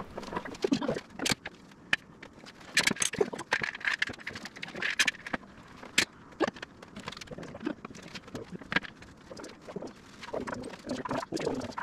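Sped-up workshop sound of a door glue-up: a quick, irregular run of clicks, knocks and scrapes as aluminum bar clamps are set and tightened on a mahogany door frame.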